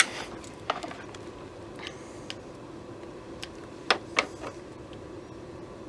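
Scattered small clicks and ticks from handling a flat console cable and its wires with cutters, about half a dozen spread out, over a faint steady hum.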